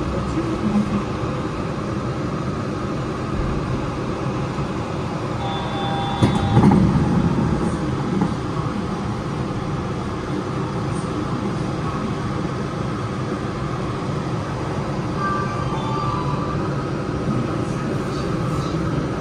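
Yurikamome rubber-tyred automated guideway train running along its elevated guideway as it pulls away from a station, heard from inside the front of the car: a steady running noise with one louder bump about six and a half seconds in and a few brief high tones.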